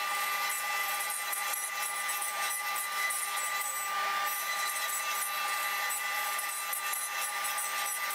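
CNC router spindle running with a steady high whine while a 1/8 inch ball-nose bit cuts walnut on a 3D finishing pass, the cutting adding a dense, even hiss.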